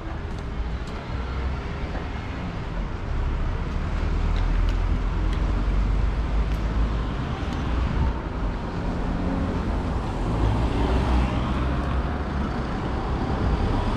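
Street traffic and road noise heard from a moving bicycle: a steady low rumble that gets louder about three seconds in.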